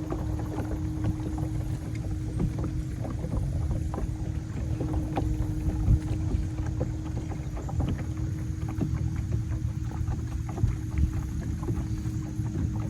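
Jon boat under way on the water: a steady low hum over a rumbling wash of wind and water noise, with scattered small knocks.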